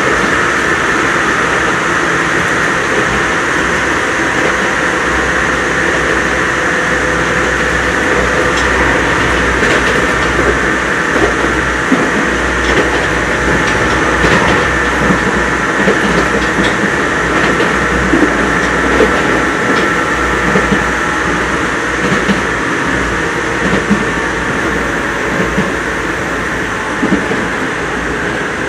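Interior running sound of a Nagoya Municipal Subway 3000 series chopper-control electric train at speed: steady wheel-and-rail noise with a held high whine from its chopper-controlled traction equipment, and occasional clicks as the wheels pass over rail joints.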